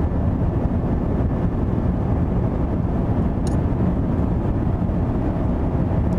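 Steady cabin noise of an Airbus A350-1000 airliner in flight: an even, low rumble of its Rolls-Royce Trent XWB engines and airflow over the fuselage. A faint clink of cutlery on a plate comes about three and a half seconds in.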